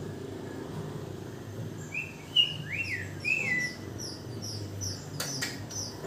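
Songbird nestlings chirping: a rapid run of short, high, falling peeps begins about two seconds in, with a few louder, lower calls that rise and fall, as the chicks are hand-fed. A sharp click comes about five seconds in.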